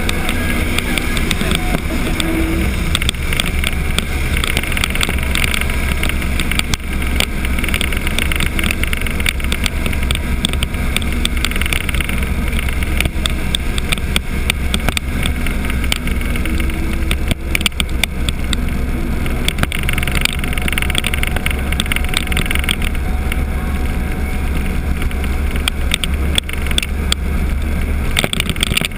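Steady wind rush and buffeting on the microphone of a camera mounted on a Honda Gold Wing GL1500 motorcycle at road speed, with engine and road noise underneath and frequent small crackles.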